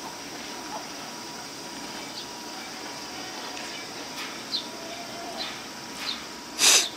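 Steady outdoor background hiss with a few faint, short, high chirps scattered through it, and one short, loud, breathy puff of noise near the end.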